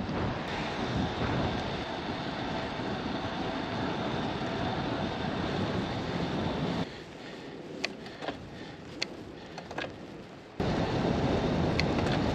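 Steady wind and road noise on a bicycle-mounted camera while riding. About seven seconds in, the noise drops sharply for a few seconds to a quieter stretch with a few sharp clicks, then returns suddenly at the same level as before.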